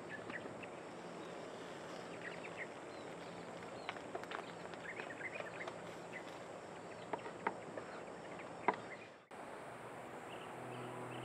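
Metal tongs clicking sharply against a frying pan a few times while a prata wraps cooks on a portable gas stove, over a faint steady outdoor hiss with scattered bird chirps. Soft guitar music begins near the end.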